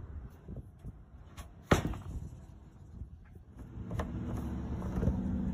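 A single sharp knock about two seconds in, from the golf cart's body being handled, with a few lighter clicks around it. In the last second and a half a steady low hum builds.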